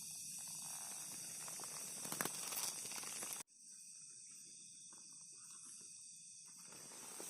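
Steady high-pitched chorus of night insects such as crickets, with a few brief rustles about two seconds in. The sound cuts off abruptly about three and a half seconds in and resumes at once with the same insect chorus.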